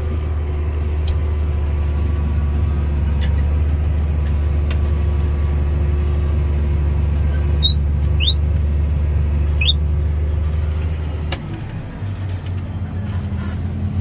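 Tractor engine running steadily under load, heard from inside the cab, as the grain cart's unloading auger is brought over the truck. A few short, high rising chirps come around the middle. About eleven seconds in, the deep steady hum drops away abruptly and the engine note changes.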